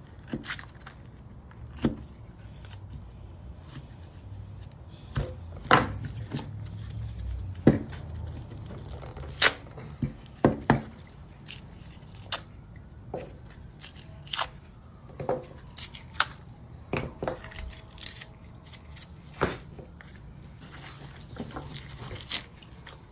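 Cardboard tubes of a firework cake being pried and torn apart by hand: irregular ripping, scraping and sharp snaps of paper and glued cardboard.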